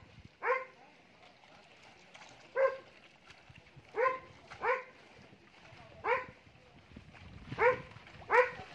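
A dog barking in short single barks, about eight of them, each one clear and separate, coming every second or two.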